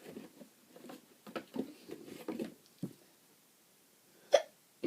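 A single short, sharp hiccup a little after four seconds in, loud against faint scattered movement sounds before it.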